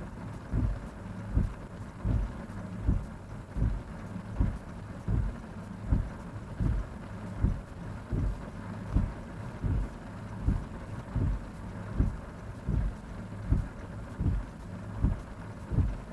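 Windscreen wipers of a Honda Fit sweeping in heavy rain, a low thump at every turn of the blades, about once every three-quarters of a second, over the steady hum of the idling car and the rain.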